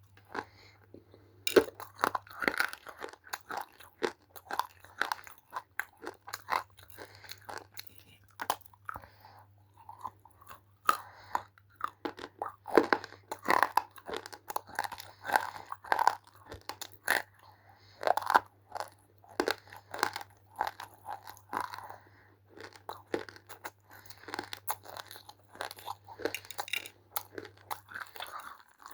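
Close-up crunching and chewing of roasted multani mitti (fuller's earth clay): a rapid, irregular run of sharp crunches, with a faint steady low hum underneath.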